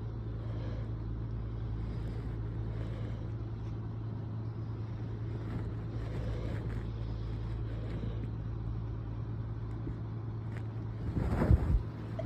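Steady low hum and rumble, then a person sneezes loudly and suddenly near the end.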